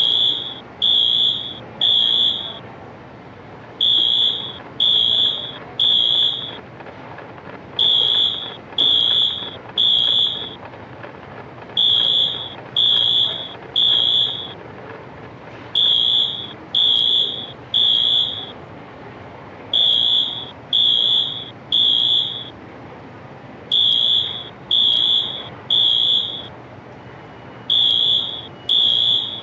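Building fire alarm horns sounding a high-pitched, very loud beep in groups of three with a pause after each group, repeating every four seconds: the temporal-three evacuation signal.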